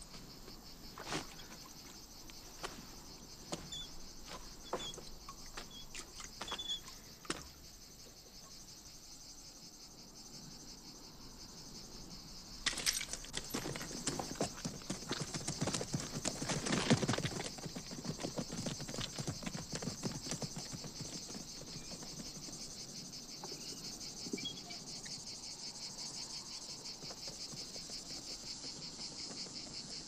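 Insects chirring steadily in dry country. A few sharp creaks and knocks come in the first several seconds. A stretch of horse hoofbeats with rustling comes about halfway through, then fades back under the insects.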